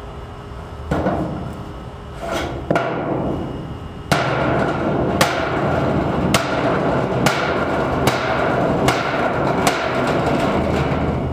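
Body hammer striking a dented sheet-metal carport roof panel to knock the dents out. A few scattered blows at first, then steady strikes about once a second from about four seconds in, over a continuous metallic din.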